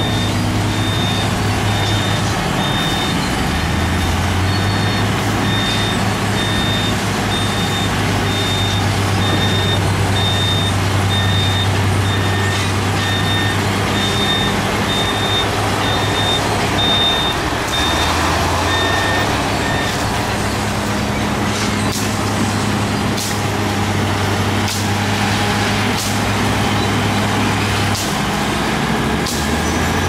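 Heavy earthmoving machinery's diesel engine running, its pitch shifting a few times with changing load. A reversing alarm beeps about once a second and stops about two-thirds of the way through. Several sharp clanks follow near the end.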